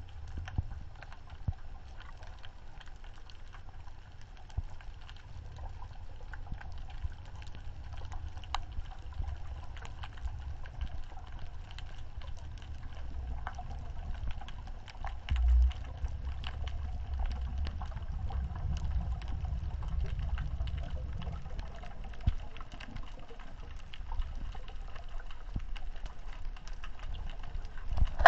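Muffled underwater sound heard through a GoPro's waterproof housing: a steady low rumble of moving water with many faint scattered clicks, and a brief low thud about halfway through.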